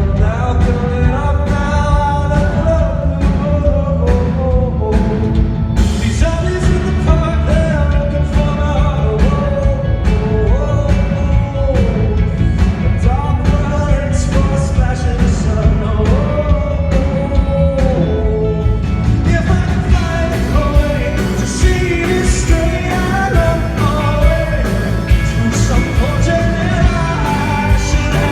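Live rock band playing loud, with a male lead singer over a steady drum beat, as recorded from the audience on a camera.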